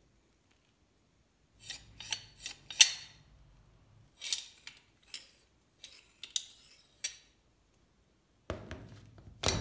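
Restored Gedore corner pipe wrench handled in a gloved hand: light metallic clicks and clinks from its sliding jaw and adjusting screw in several short clusters. Near the end come two heavier knocks as the steel wrench is set down on the table.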